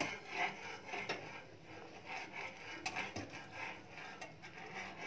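Wire whisk stirring thick cocoa syrup in a saucepan: rhythmic swishing strokes scraping against the pan, about two a second.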